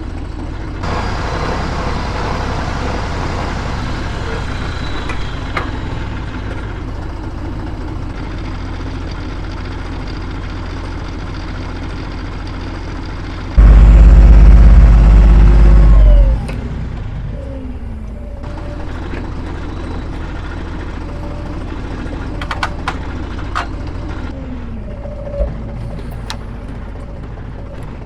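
Farm machinery engine running steadily in an orchard at harvest, with a much louder low rumble lasting nearly three seconds about halfway through and a few sharp clicks near the end.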